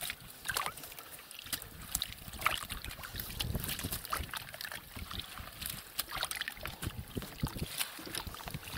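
Water sloshing and splashing in a metal basin as hands sort through live crucian carp, with irregular small splashes and wet clicks.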